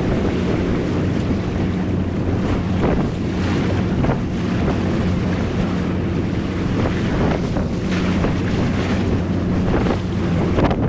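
A boat engine drones steadily at a low pitch under wind buffeting the microphone and the wash of water.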